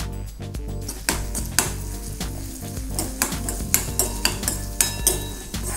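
Chopped onions sizzling in hot oil in a deep metal kadai while a spoon stirs them, knocking and scraping against the pan many times from about a second in. Background music plays underneath.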